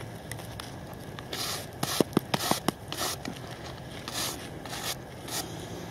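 Gloved hands rubbing and scraping soil off a rusty iron relic just pulled from the ground, with rustling of dirt and a cluster of small sharp clicks and scrapes about two seconds in.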